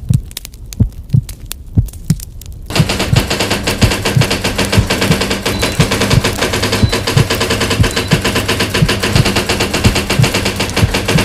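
Sound-effect intro: slow, low heartbeat-like thuds, joined about three seconds in by a loud, rapid, dense clatter of clicks over a low steady hum.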